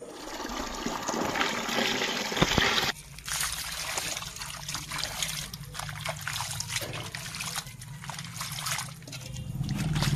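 Water poured and splashing over raw chicken pieces on a stone slab as they are rinsed by hand, with wet slaps and squelches of the meat. A steady rush of water for the first few seconds cuts off abruptly, then comes a run of short splashes and clicks, over a low hum that grows louder near the end.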